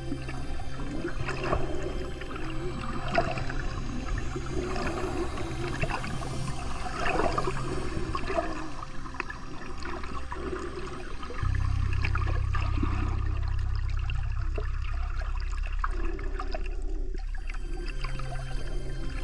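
Water gurgling and trickling, with scattered small clicks, over a low sustained drone of background music that shifts to a new, louder note about halfway through.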